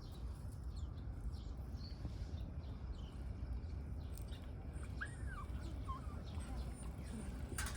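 Short high-pitched mew from a tortoiseshell cat about five seconds in, rising then falling, followed by a briefer second call, over a steady low outdoor rumble. A sharp click comes near the end.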